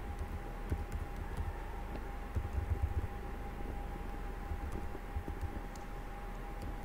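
Typing on a computer keyboard: scattered keystrokes, with a quick run of taps about two and a half seconds in, over a steady faint tone and background hiss.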